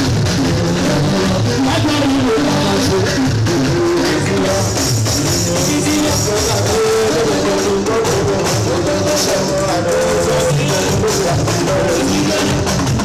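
Live band music played loud through PA speakers: a man sings over steady drums and percussion.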